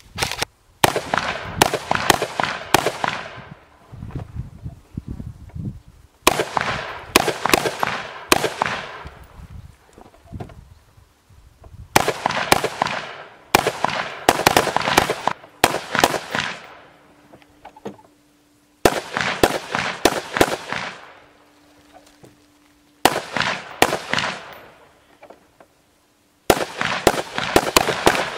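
Strings of rapid gunshots from an AR-style carbine, several quick shots in each string, with a new string every few seconds. Each shot cracks sharply and trails off in a short echo.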